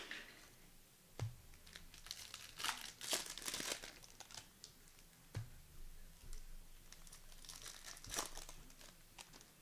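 Plastic wrapper of a basketball trading-card pack being torn open and crinkled by hand, in several bursts of crackling, with a few light knocks as the pack and cards are handled.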